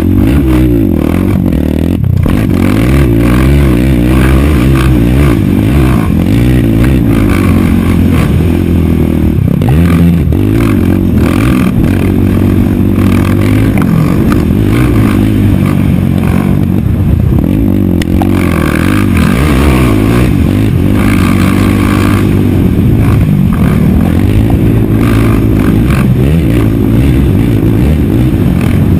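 Racing quad (ATV) engine at full race pace, heard close up from on board: its pitch climbs hard under throttle, drops off, and climbs again over and over, as it runs up through the gears and backs off for corners.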